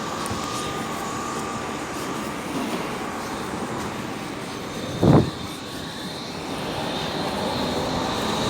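Končar TMK 2200 low-floor tram heard from inside while running: a steady rumble, a brief loud thump about five seconds in, then a high electric whine that grows louder toward the end.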